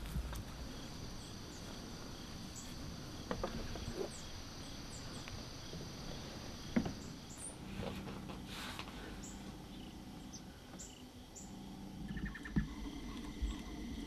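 Outdoor field ambience: insects trilling steadily in short repeating pulses, with brief bird chirps and a few faint knocks over a low background rumble.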